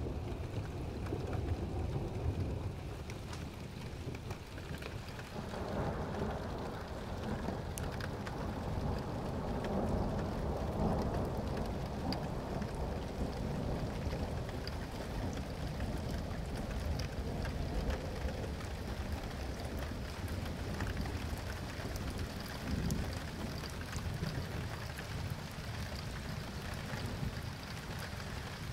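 Steady rain falling during a thunderstorm, with scattered ticks of drops close by. About five seconds in, a long low rumble of thunder swells up and dies away again over several seconds.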